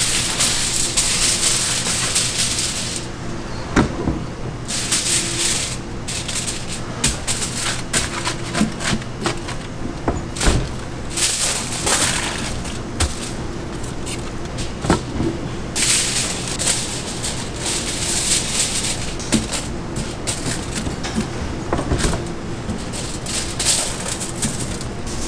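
Aluminium foil crinkling and rustling as it is pressed around stainless steel coin-bread grills, with scattered light clicks and knocks of metal. Three stretches of hiss, each a couple of seconds long, come at the start, about five seconds in and about sixteen seconds in, over a steady low hum.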